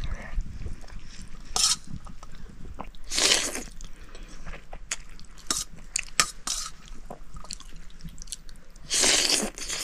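People eating soup noodles: chewing with small clicks throughout and a few loud slurps, the longest about three seconds in and near the end.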